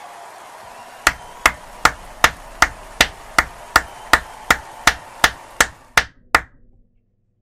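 A steady run of about fifteen sharp clicks, evenly timed at roughly two and a half a second, over a fading background. The clicks stop abruptly about six and a half seconds in.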